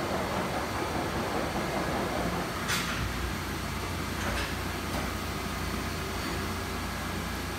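Mazak FH-4800 horizontal machining center running with a steady low hum. A rushing noise fades out over the first two seconds, then comes one sharp clack followed by two lighter knocks of its moving parts.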